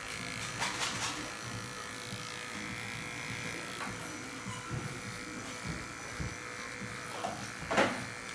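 Arco cordless dog clipper with a #15 blade buzzing steadily as it cuts through a poodle's tail hair against the lie of the coat. A few short knocks sit over it, the loudest near the end.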